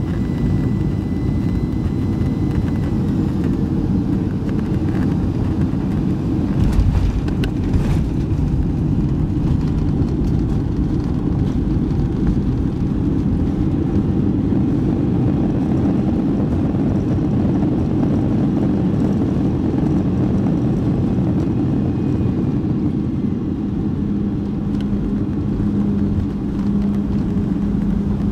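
Cabin noise of a Boeing 737-300 landing: the steady rumble of its turbofan engines and rushing air, with two thumps about seven seconds in as the wheels touch the runway. A steady hum joins in near the end.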